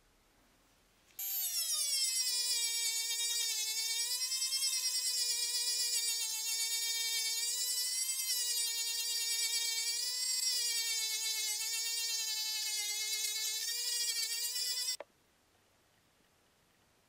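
Handheld rotary tool with a polishing wheel buffing brass: a high motor whine that starts about a second in, drops in pitch as it takes load, wavers as the pressure on the work changes, and cuts off suddenly near the end.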